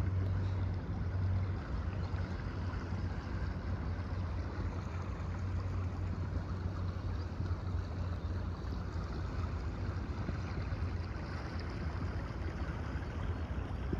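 Floodwater current rushing and rippling across flooded grass: a steady rushing noise with a constant low rumble underneath.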